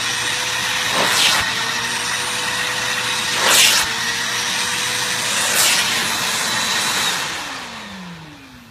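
Vacuum cleaner running steadily over carpet, with a few brief louder surges; about seven seconds in it is switched off and its motor winds down, the whine falling in pitch.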